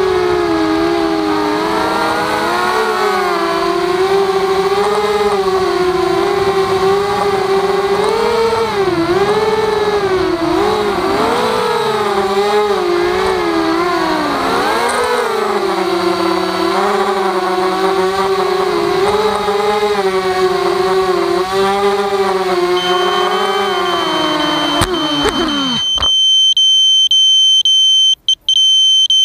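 Walkera Rodeo quadcopter's motors and propellers whining, heard from the onboard camera, their pitch rising and falling with the throttle. About 25 seconds in, the pitch drops and the motors stop as the quad comes to rest on the ground. A steady, high electronic beep comes in shortly before and carries on after the motors stop.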